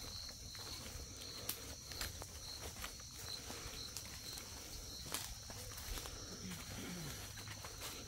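Footsteps on dry leaves and twigs on a forest floor, irregular crunches and snaps as several people walk. Insects buzz steadily in the background with a high pulsing chirp.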